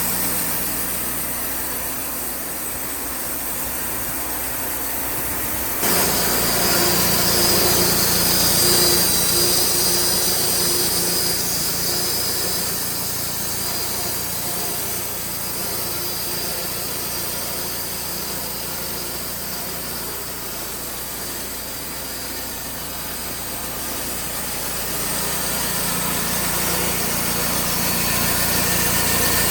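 Wood-Mizer portable band sawmill running steadily under its engine. About six seconds in the sound suddenly gets louder and brighter, and it holds that way.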